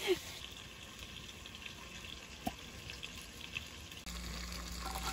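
Faint, steady sizzling of onions and celery frying in a Dutch oven. About four seconds in, a low steady hum begins.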